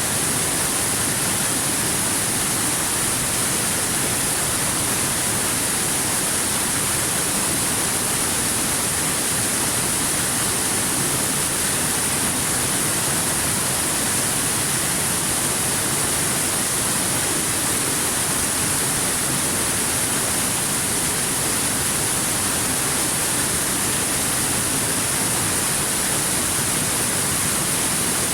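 Stream water rushing over rocks: a steady, unbroken hiss-like rush with no change in level.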